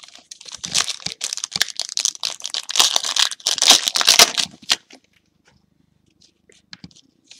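Plastic trading-card pack wrapper torn open and crinkled by hand, a dense crackly rustle that stops about five seconds in, followed by a few faint ticks of cards being handled.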